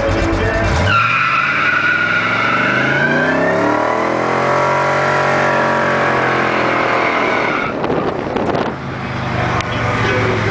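1959 GMC truck doing a burnout: rear tire squealing as it spins on the pavement while the engine revs, its pitch climbing to a peak about halfway through and then falling. The sound dips briefly about eight seconds in and then picks up again.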